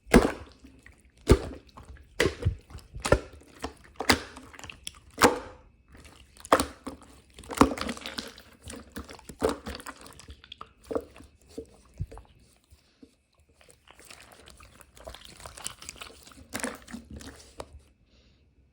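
Irregular clicks, knocks and rustling handling noises, with a softer hiss for a few seconds near the end before it stops.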